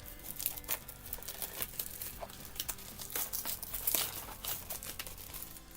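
Plastic packaging crinkling and rustling in quick, irregular crackles as a speedcube's box is unwrapped by hand.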